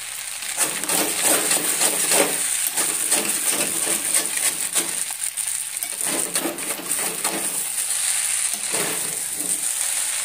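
Noodles frying in a metal kadai on a gas stove, with a steady high sizzle. A metal spatula stirs and tosses them, clicking and scraping against the pan over and over.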